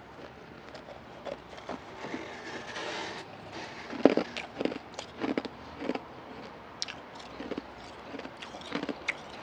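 Ice being bitten and chewed close to the microphone: irregular crunches and crackles, the loudest a little after four seconds.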